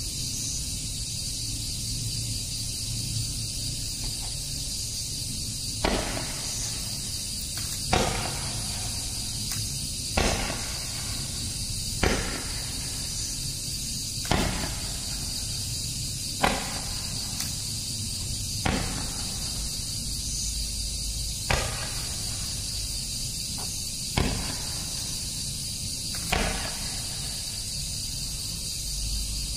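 Funke Kaliber C Roman candle firing its shots one at a time, about ten sharp pops roughly every two seconds, over a steady high hiss.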